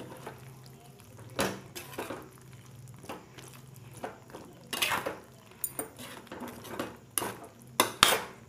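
A spatula stirring a thick curry in a stainless steel pan, scraping and knocking against the metal at irregular moments, the loudest strokes about five and about eight seconds in.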